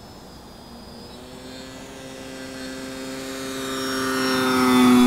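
OMP Super Decathlon 55-inch RC plane's electric motor and propeller on a low pass: a steady buzzing tone that grows steadily louder as the plane closes in, loudest near the end.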